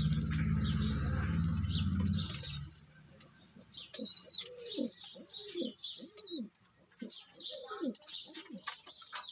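Pigeons cooing: a string of short, low, rising-and-falling coos through the second half, with small birds chirping high above throughout. A steady low rumble fills the first two and a half seconds and then stops.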